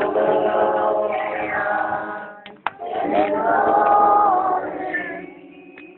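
A group of voices singing a slow Spanish worship chorus together, holding long notes in two phrases with a couple of sharp clicks between them, and trailing off near the end.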